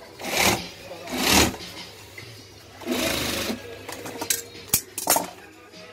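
Industrial sewing machine running in several short bursts of stitching, with a few sharp clicks near the end.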